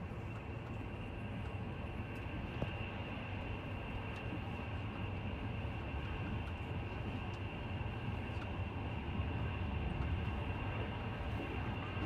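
Steady low rumble with an even hiss above it and a few faint clicks, unchanging throughout.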